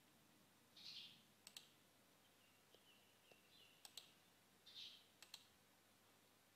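Near silence with faint computer mouse clicks: three quick press-and-release pairs spread over a few seconds. A few faint, short, high chirps sound in the background.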